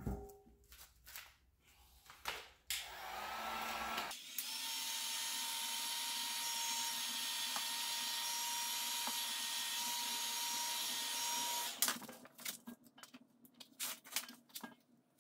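Heat gun blowing steadily with a faint whine, warming electrical tape on a motorcycle wiring harness so the tape's adhesive grips. It comes up about three seconds in and cuts off near the twelve-second mark, with clicks of handling before and after.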